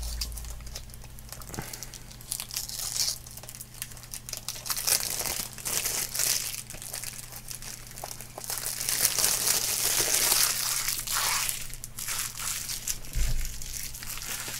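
Plastic shrink-wrap being torn off a sealed DVD/Blu-ray box set and crumpled in the hands: an irregular run of crinkling and tearing, loudest in a long stretch past the middle, with a soft bump shortly before the end.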